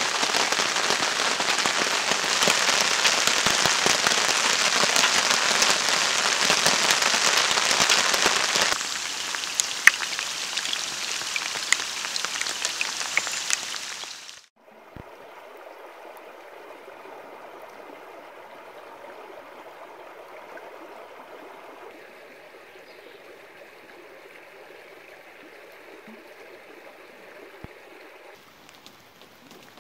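Steady heavy rain falling, easing somewhat about nine seconds in, then cutting off suddenly about halfway through to a much fainter patter of rain.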